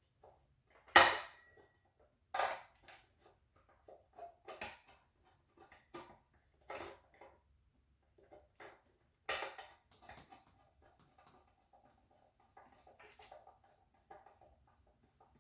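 Metal parts of a Kawneer panic exit device being handled and set down during reassembly. There are sharp clanks and clicks at irregular intervals, the loudest about a second in with a short metallic ring, and a lighter rattle of handling later on.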